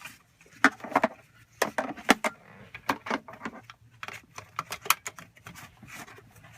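A car's seat belt being threaded through an infant car seat's belt path and buckled: the metal latch plate and plastic clatter and click irregularly, with rustling of the belt webbing.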